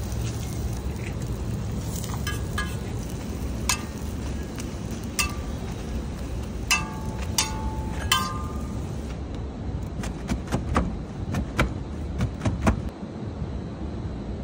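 Metal spatula clinking against a steel roti griddle: several short, ringing clinks in the first half, then a quicker run of sharp dry taps toward the end, over a steady low rumble.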